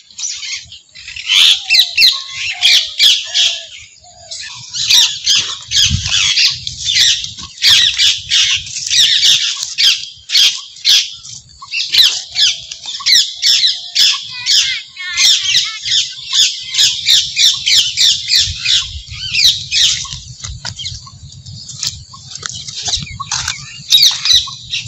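Birds chirping and chattering loudly close by: a dense run of rapid, high-pitched calls, with brief lulls about four and eleven seconds in.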